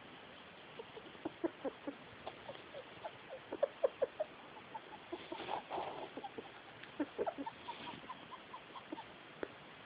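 Pet rat making short, squeaky chirping noises, irregular and several a second, coming in bunches. Its owner finds the noise weird and worrying.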